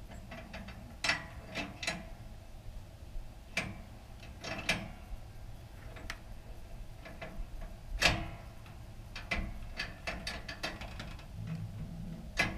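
Tie-down strap hardware clicking and rattling at irregular intervals as the straps are fastened, with one louder knock about eight seconds in.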